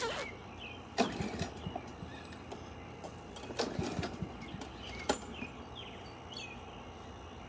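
Lawn mower being pull-started: four or so sharp yanks of the recoil cord, each with a brief rough sputter, without the engine catching.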